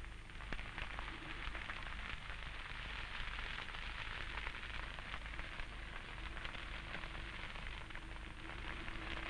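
Dry grass burning in a bush fire, with a steady, dense crackling.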